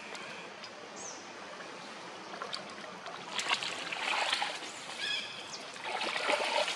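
A monkey wading and swimming in a river: water swishing steadily, then splashing and sloshing in irregular bursts from about three seconds in as it stands up and moves in the water. A short high-pitched call about five seconds in.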